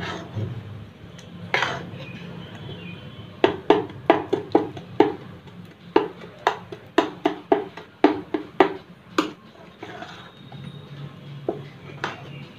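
Metal spoon stirring thick foxtail-millet dosa batter with egg in a steel bowl. It clinks against the bowl's side in a quick run of sharp knocks, about three a second, through the middle of the stretch, with softer stirring before and after.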